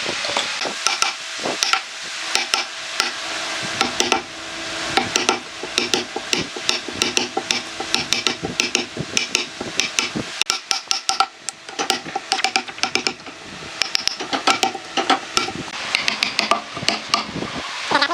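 Wood chisel cutting a mortise into a log: a run of sharp, irregular knocks and cracks as the chisel is driven into the wood and chips split off, several a second.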